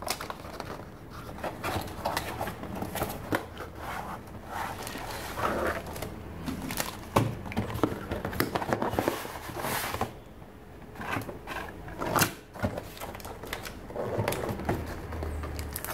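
Cardboard retail box being opened and handled, with the inner compartment box sliding out: irregular scraping, rustling and small knocks, and one sharper knock about twelve seconds in.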